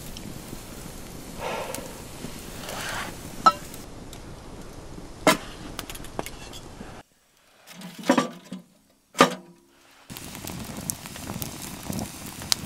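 Steady background hiss with a few soft sounds and sharp clicks, then two knocks in near quiet, and from about ten seconds in a wood fire in a fire grate crackling with many small pops.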